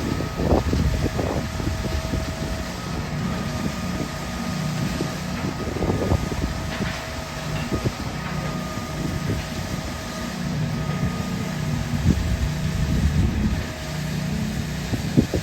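Heavy diesel construction machinery running steadily, with a low engine hum, a faint steady whine and scattered metallic knocks.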